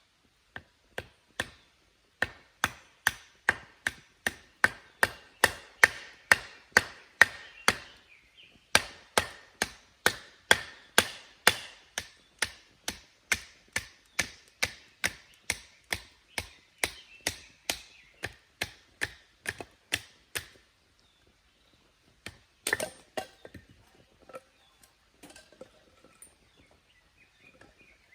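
A steady run of sharp hand-tool strikes, about two a second, with a short break about eight seconds in; the strikes stop after about twenty seconds, followed by one louder clatter and a few faint knocks.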